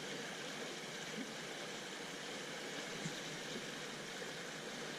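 Creek water running steadily, an even rushing hiss, with a few faint soft ticks.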